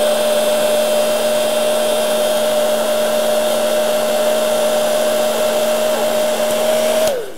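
Handheld heat gun blowing hot air to shrink heat-shrink tubing on soldered battery wires: a steady rush of air with a constant hum. Near the end it is switched off and the hum falls away as the fan winds down.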